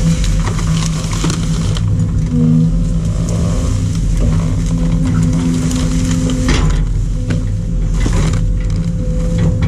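Excavator's diesel engine running steadily under hydraulic load while its demolition grab crunches and scrapes through debris. Sharp cracks and knocks come throughout, the loudest a little past halfway and again about eight seconds in.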